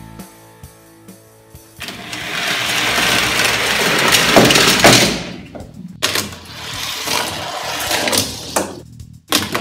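Several Hot Wheels die-cast cars rolling down a plastic spiral ramp, a rattling rumble that builds and cuts off sharply about five seconds in, followed by a click and more clattering rolling.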